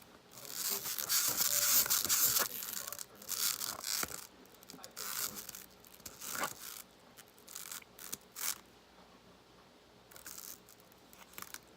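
Slime mixture being stirred in a plastic bowl as Tide detergent, the activator, is worked in: irregular scraping strokes, busiest in the first couple of seconds and sparser toward the end.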